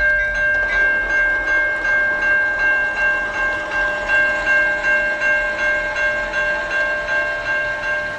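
Railroad crossing warning bell ringing steadily, about two and a half strikes a second, while the crossing signals are active.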